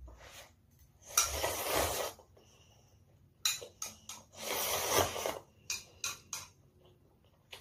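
Slurping instant ramen: a long slurp of noodles, then a second long slurp of broth from a bowl tipped to the mouth a few seconds later, with several short clicks and smacks between and after them.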